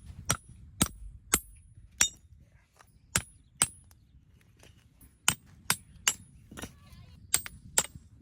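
Repeated sharp strikes of a hard tool with a short metallic ring, irregular at about one or two a second, with a pause near the middle.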